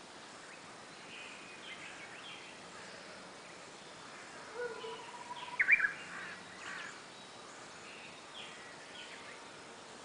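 Japanese bush warbler (uguisu) singing: a held whistle about four seconds in, then a quick, louder phrase of higher notes. Faint scattered bird chirps sound throughout.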